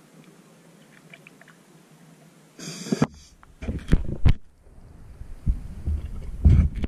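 Scuba breathing heard underwater: a short hiss of inhalation through the regulator about two and a half seconds in, then the low, uneven bubbling rumble of exhaled air pouring out of the regulator exhaust.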